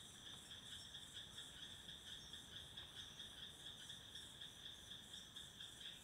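Faint, steady insect chirring, a high even trill that pulses about three times a second.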